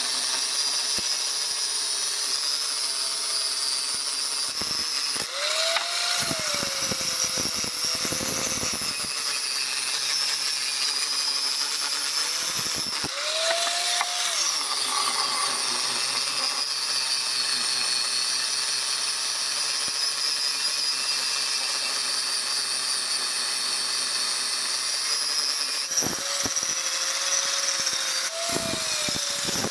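Electric angle grinder with an abrasive disc grinding a metal cleaver blade: a steady high whine with a grinding hiss, and sparks flying off the blade. A few times the motor's pitch sags under load and glides back up as the disc eases off the metal.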